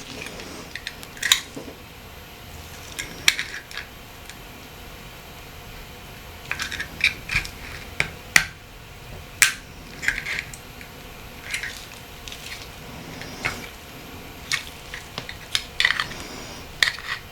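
Irregular small clicks and taps of tools and the metal and plastic parts of a Nokia 8910i handset being handled as it is taken apart, about a dozen at uneven intervals over a faint steady background.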